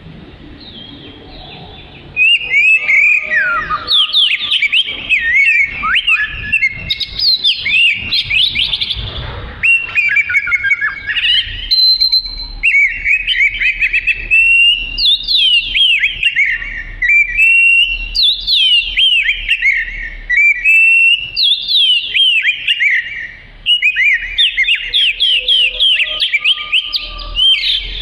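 Oriental magpie-robin (kacer) in full song: a long, fast run of loud whistled phrases with quick rising and falling glides, starting about two seconds in, with one short break near the end.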